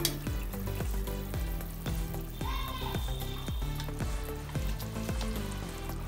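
Masala curry gravy simmering and bubbling in a kadai, with soft plops as pieces of fried fish are dropped into it.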